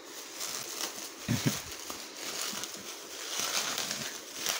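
Bubble wrap and plastic film crinkling and rustling as hands pull it off a coil of wire, with a couple of soft handling bumps about a second and a half in.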